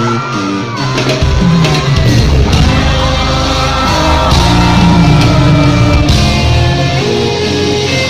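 Loud amplified live music with a singer's voice over a concert PA, heavy bass coming in about a second in.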